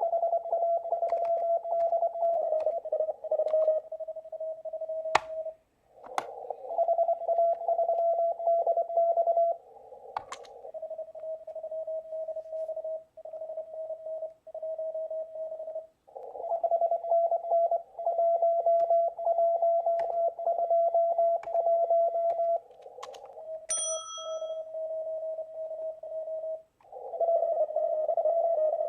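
Morse code (CW) on a ham radio receiver: a tone at one steady pitch keyed in quick runs of dots and dashes, some stretches carrying a band of receiver hiss around the tone, as stations exchange call signs and serial numbers in a CW contest. A few sharp clicks fall in the first half, and a short higher beep sounds about three-quarters of the way through.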